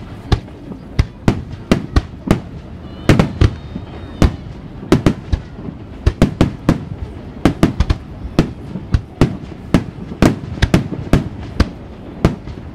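Aerial firework shells bursting one after another in a rapid, irregular series of sharp bangs and booms, several a second at the busiest moments.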